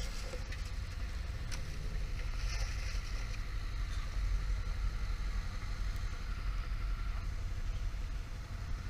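Off-road vehicle engines running at low speed over muddy ground: a steady low rumble.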